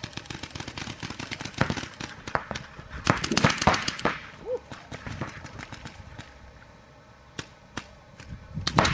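Several paintball markers firing rapid strings of pops. The shots are densest for the first four seconds, thin out in the middle and pick up again near the end.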